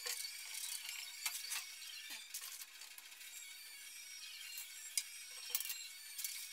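Brass 90-degree elbow fittings clinking and clicking as they are handled and fitted onto the ports of a Viega Manabloc water manifold: scattered light metallic taps, about nine of them.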